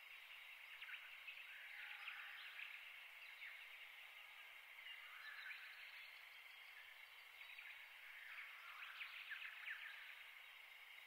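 Faint outdoor ambience with distant small birds twittering in short clusters, a few seconds apart.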